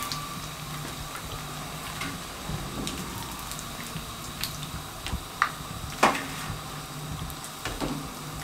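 Cooking oil bubbling and sizzling gently in a frying pan as fried bread rolls are lifted out with metal spatulas, with scattered light clicks and taps of the spatulas against the pan and the perforated steel draining plate, the loudest tap about six seconds in. A steady low hum runs underneath.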